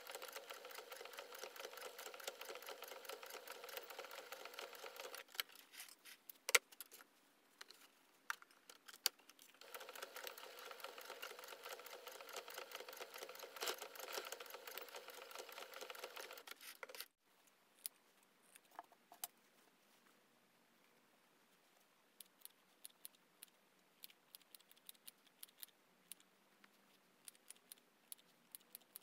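Electric domestic sewing machine stitching a seam in cotton fabric, running steadily for about five seconds, stopping for a few seconds, then running again for about seven seconds. Near the end, scissors snip fabric in a run of short clicks.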